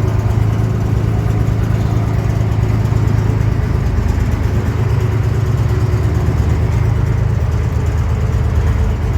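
Tractor engine running steadily at low revs with an even hum, no revving up or down, while the tractor is driven slowly in a manoeuvre.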